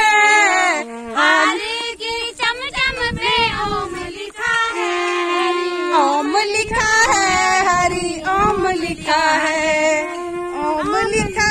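Women and children singing a devotional song to the goddess in chorus, unaccompanied, with one long held note about halfway through. A low rumbling noise runs under the voices in the second half.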